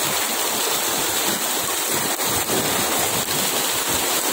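Steady, dense splashing of crowded milkfish thrashing at the surface inside a harvest net, the water churning continuously.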